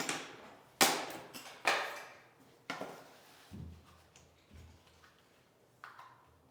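Vinyl click-flooring planks being handled and knocked into place: four sharp knocks about a second apart, then two dull thumps and a small click near the end.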